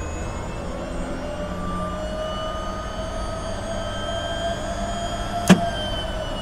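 Pratt & Whitney PT6B-37A turboshaft of an AW119 Koala helicopter being run as a cooling run to bring down its inter-turbine temperature (ITT), heard from inside the cockpit: a steady whine that rises slowly in pitch. A single sharp click about five seconds in.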